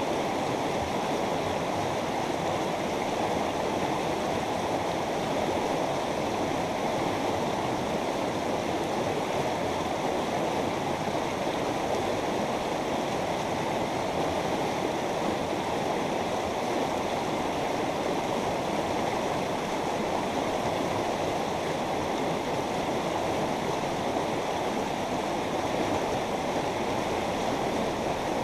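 A mountain river running over rocks: a steady, even rush of flowing water.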